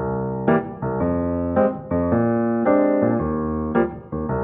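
Background music: a keyboard plays held chords that change about every half second to a second.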